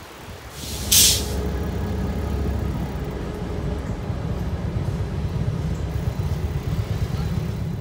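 Air hiss, like an air brake, from a passenger train standing at a station, about a second in, followed by a steady low rumble with a faint engine hum.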